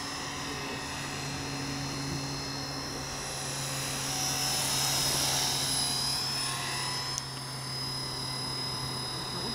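Electric RC helicopter (eSky Belt CP on a B.A.D. flybarless frame) in flight: a steady high motor whine with rotor hum. It grows louder about four to six seconds in as it passes closest. There is a brief click about seven seconds in.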